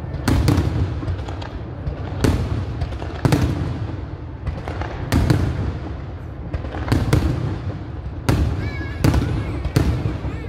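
Aerial firework shells bursting overhead in a public display, a sharp bang about once a second, with a low rumble carrying between the bangs.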